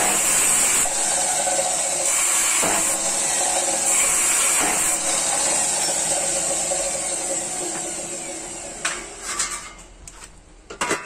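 Electric abrasive cut-off saw running and grinding through steel, then switched off, its motor winding down over a few seconds. A few metal clanks near the end as a long metal bar is handled.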